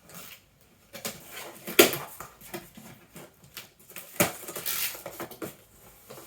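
Cardboard jigsaw puzzle boxes being handled and set down: irregular knocks and scraping with rustle. The sharpest knocks come about two seconds in and again about four seconds in.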